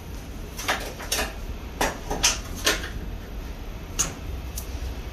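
Sliding enclosure door of a Haas UMC 5-axis CNC machining centre being closed: a series of clunks and knocks over a steady low hum.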